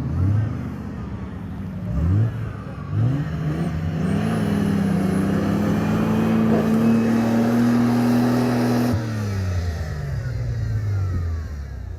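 Off-road 4x4 engine revving hard in the sand: two quick blips of the throttle, then held at high revs for about five seconds as the vehicle climbs a dune. The throttle cuts off sharply and the revs wind down.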